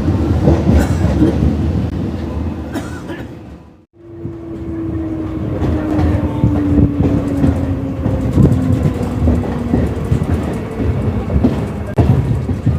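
Passenger train going by at speed: a heavy rumble with wheels clattering over rail joints. About four seconds in the sound cuts to another pass, where a long horn note slowly falls in pitch over several seconds above the wheel clatter.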